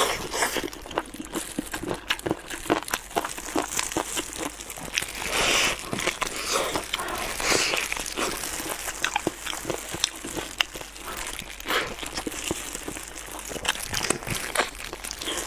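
Close-miked eating of braised pork trotters: wet chewing and lip smacking with many small clicks as the sticky skin is bitten and pulled from the bone, and the crinkle of clear plastic gloves handling the meat.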